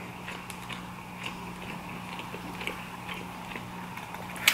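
Close-up chewing of food, with many soft mouth clicks and small ticks over a steady low hum, and one sharper click near the end.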